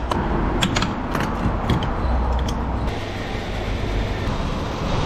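Filling-station diesel pump dispensing fuel into a car's tank: a steady run of pump and fuel flow, with several sharp clicks in the first three seconds.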